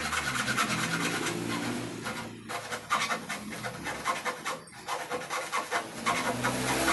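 Handsaw cutting through the wood of a table frame in a quick run of back-and-forth strokes, pausing briefly twice.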